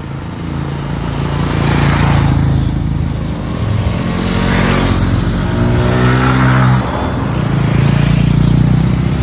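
A group of motorcycles, among them a KTM Duke and a TVS Apache RR 310, riding past one after another. Each engine note swells as the bike comes up and fades as it goes by, about four passes in all, with the engine pitch rising and falling.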